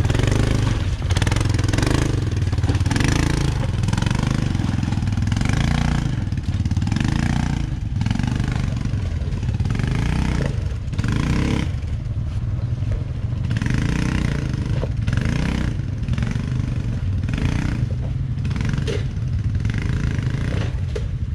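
ATV engine running under load on a trail, its pitch rising and falling again and again as the throttle is worked.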